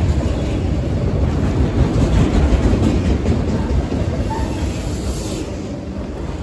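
CSX freight train's multilevel autorack cars rolling past close by: a steady rumble of steel wheels on the rails, with clicks as the wheels cross rail joints. The sound eases off near the end as the last cars go by.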